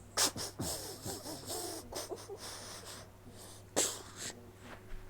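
A child making play-acted crying sounds: breathy sobs and short wavering whimpers, then a sharp sniff or gasp just before four seconds in.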